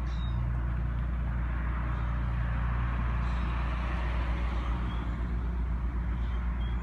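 Street traffic: a passing car's tyre noise swells and fades about two to four seconds in, over a steady low rumble.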